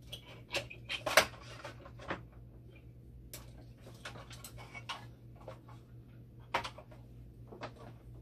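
Irregular plastic clicks and knocks from hands handling the tubing, hose fittings and a cartridge inside an opened dialysis machine, the loudest about a second in, over a steady low hum.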